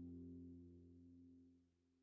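Meditation music fading out: a few steady low held tones die away, dropping to near silence near the end.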